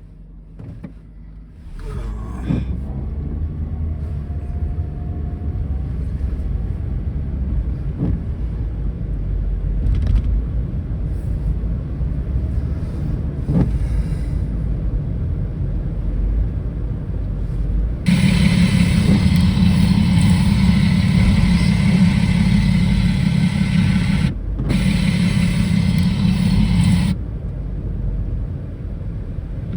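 Car driving, with a steady low rumble of engine and road noise. Past the middle, a louder steady hum-and-hiss starts abruptly, cuts out for a moment, and stops abruptly after about nine seconds.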